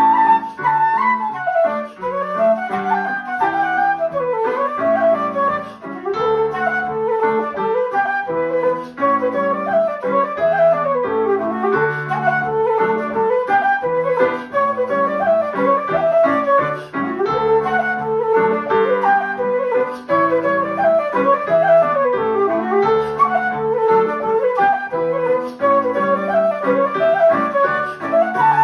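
Wooden flute playing a lively Irish barndance melody with quick runs and ornaments, accompanied by rhythmic chords on a Roland digital piano.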